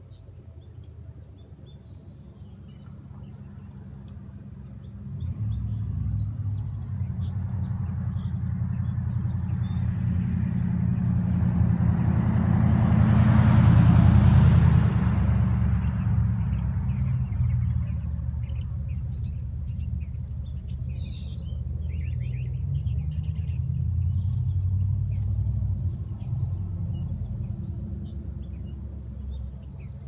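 A car passing slowly close by: its low engine rumble builds up, peaks about halfway through with a rush of tyre noise, then fades away gradually. Small birds chirp throughout.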